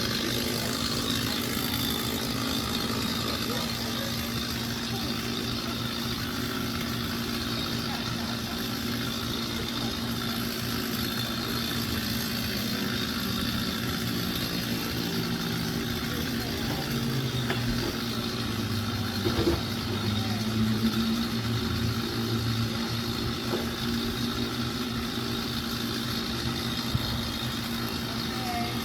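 A heavy machine's engine running steadily, its pitch rising and falling for several seconds around the middle as it works under varying load.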